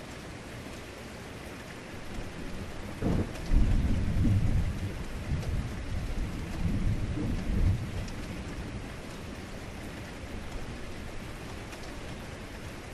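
Heavy rain falling steadily, with a deep thunder strike about three seconds in: a sharp crack, then a low rumble that rolls on for about five seconds and dies back into the rain.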